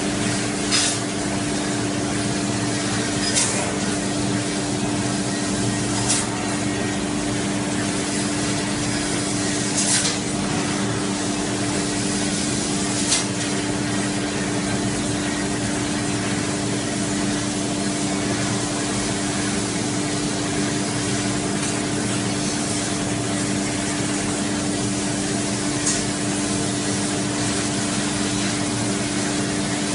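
CNC laser cutting machine running: a steady hiss over a constant machine hum, with a few short, sharp spurts of hiss scattered through it.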